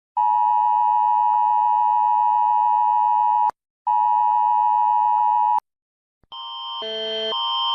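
Emergency alert tones. A steady high-pitched attention tone sounds, breaks off briefly about three and a half seconds in, resumes and cuts off two seconds later. After a short silence a different alarm fades in, switching between a high and a low chord about twice a second.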